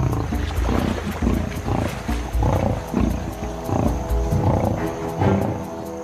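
Lionesses growling in a rough, repeated run of low bursts, roughly one to two a second, as they bring down a buffalo. Background music with long held notes plays underneath.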